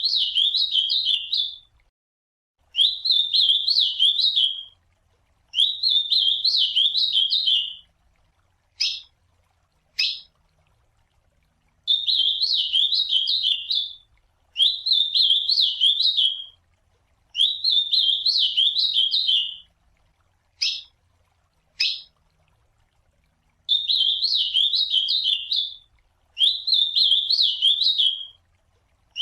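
Ultramarine grosbeak (azulão) singing: repeated warbled song phrases about two seconds long, with short gaps between them. Two pairs of single sharp call notes come between the phrases, one pair about nine seconds in and one about twenty-one seconds in.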